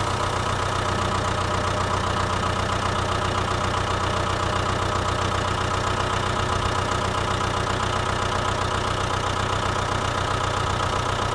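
Tractor engine idling steadily with an even, regular chug and no change in speed.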